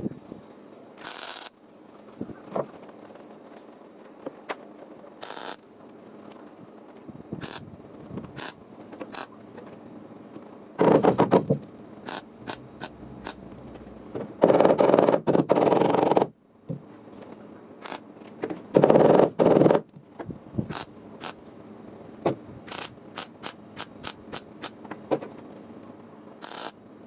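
MIG welder tack-welding thin car body sheet metal: many short crackling tacks, with three longer stitch runs of a second or two near the middle.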